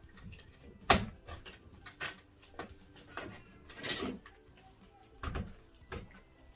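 Handling noise from a plastic dry-lining back box being pressed into a plasterboard wall cut-out and grey twin-and-earth cable being pulled through it: a series of separate clicks, knocks and scrapes. The sharpest knock comes about a second in.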